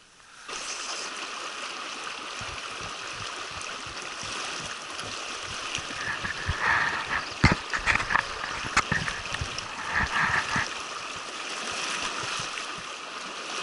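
Mountain river rushing and gurgling over rocks, starting abruptly just after the beginning. A few sharp knocks and splashes come around the middle, the loudest a little past halfway.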